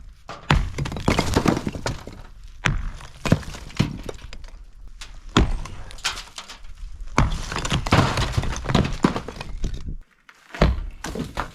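Sledgehammer blows on a cinder block wall, a dozen or so sharp strikes about a second apart, with blocks cracking and crumbling between them.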